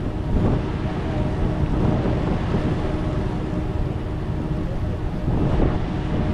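Vehicle ferry's engines running with a steady low drone and hum, with wind blowing on the microphone.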